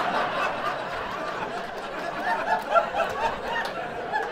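Audience laughing and chuckling, many voices at once, with a brief louder swell a little under three seconds in.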